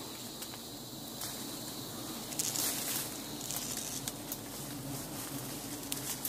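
A swarm of giant honey bees buzzing in a steady low hum as smoke drives them off their nest, with a few faint clicks over it.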